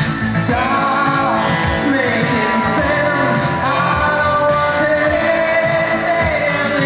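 Live band playing pop-rock on drum kit, electric guitar and keyboard, with a steady drum beat and a melody line that glides up and down over the top.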